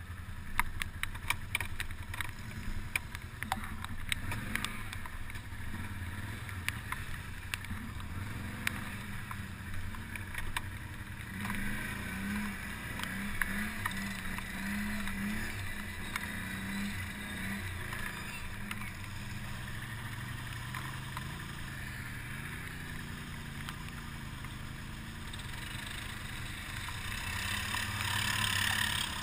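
ATV engine running as the quad is ridden slowly over a rough forest trail, with sharp clicks and knocks in the first few seconds. The engine note rises and wavers from about eleven seconds in, and the sound grows louder with a noisier hiss near the end as the ATV reaches mud.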